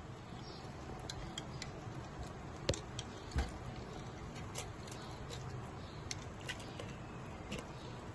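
A stainless steel wire skimmer clicks and scrapes against a clay cooking pot (handi) as whole boiled chicken pieces are lifted out of the broth. Two sharper knocks come about three seconds in.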